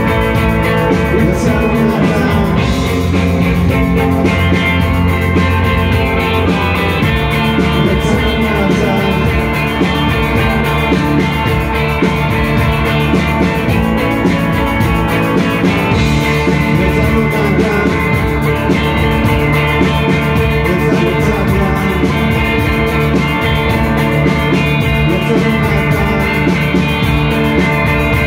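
Live rock band playing loud and steady, with electric guitars.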